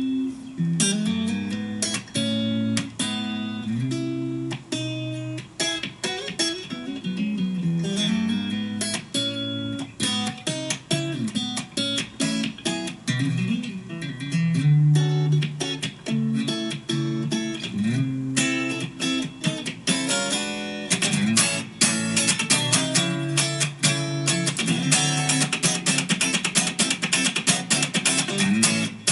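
Fender Stratocaster electric guitar playing a funk tune with quick, rhythmic chord strums and short note runs.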